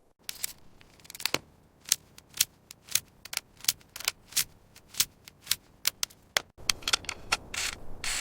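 A series of sharp clicks or taps, about two a second, then after a sudden cut, rough scraping strokes.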